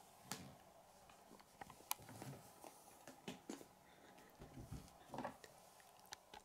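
Faint clicks and taps of small plastic Lego pieces being handled and pressed together, a handful of short scattered clicks with soft finger rustle between them.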